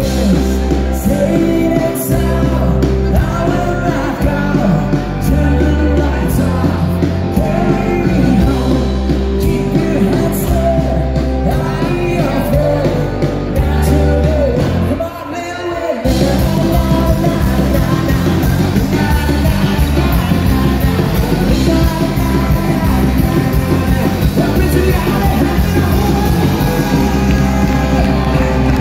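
Live rock band with accordion, electric bass, guitar and drums playing loudly, with a lead singer singing and yelling into the microphone. About halfway through the bass and drums drop out for about a second, then the full band kicks back in.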